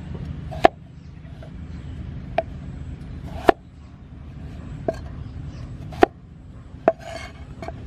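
Kitchen knife chopping through vegetables onto a cutting board: seven sharp knocks at uneven intervals of about one to one and a half seconds, over a steady low background rumble.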